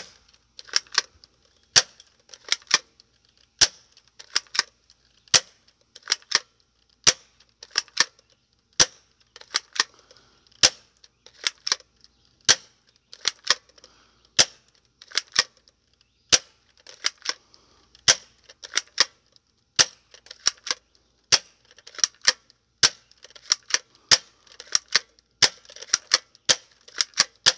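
Hydro Strike Nebula Pro gel bead blaster firing over and over, a sharp snap about once a second, with some shots coming as quick doubles or clusters. The shooter says it is misfiring quite a bit, sometimes putting out two, three or four beads at a time.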